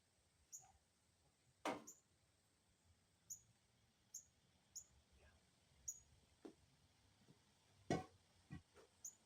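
Near silence, broken by faint scattered clicks and two brief knocks, the louder one near the end.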